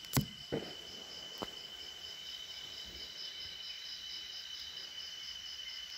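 Night insects keep up a steady high trill throughout. Three sharp crackles from burning coconut fibre come in the first second and a half, the first just after the start and the loudest.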